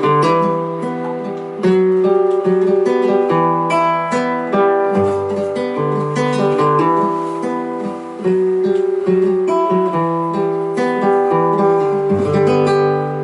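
Acoustic guitar playing a solo passage of strummed and picked chords that change every second or so.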